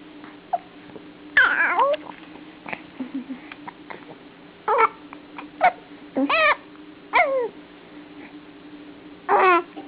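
A pet hiccupping: six short, squeaky hiccup yelps at irregular intervals, several dropping in pitch, the first about a second and a half in being the loudest.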